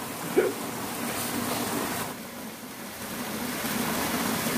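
Water-wall fountain running: a sheet of water falling from the spillway and splashing into the basin below, a steady rushing splash that dips a little about two seconds in.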